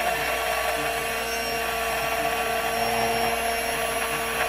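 Immersion blender switched on and running steadily with an even motor whine in a glass measuring jug of matcha white-chocolate ganache mixture, emulsifying it so the fat and liquid don't separate.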